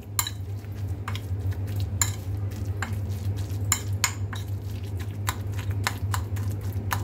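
Metal spoon stirring raw minced chicken filling in a ceramic plate, clinking and scraping against the plate in irregular strokes, about two a second.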